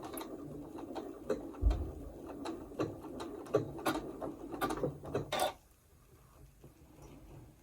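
Domestic sewing machine stitching a tiny blanket stitch, with its whirr and a click about every half second. It stops about five and a half seconds in. There is one low thump about two seconds in.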